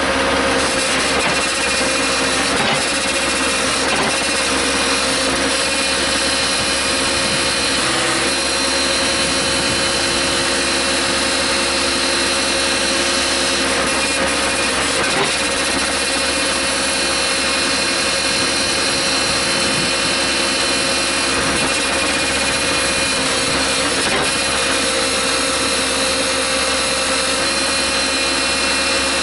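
Case 580C backhoe's engine running at a steady speed, with a steady whine over it.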